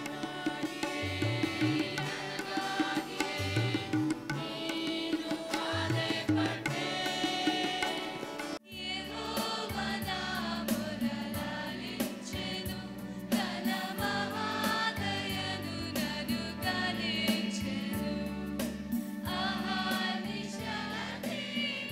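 A choir singing with instrumental accompaniment over a sustained low note. About eight and a half seconds in, the music breaks off abruptly and a different sung piece starts.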